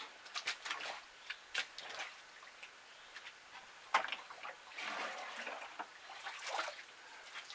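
Muddy water splashing and sloshing as a plastic bucket is dipped and filled by hand in a flooded pit, with short splashes and knocks throughout and a sharper one about four seconds in.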